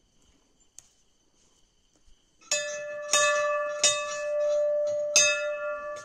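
Hanging brass temple bell rung by hand four times, starting about two and a half seconds in. Each strike clangs and the bell rings on, one ring running into the next.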